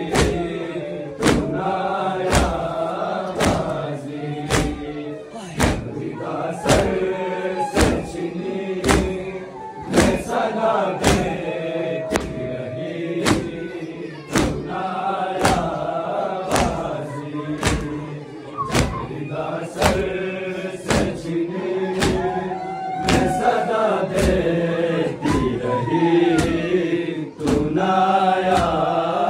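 A group of men chanting an Urdu noha (mourning lament) in unison, with the crowd's matam, hands striking chests together, landing in a steady beat about once a second.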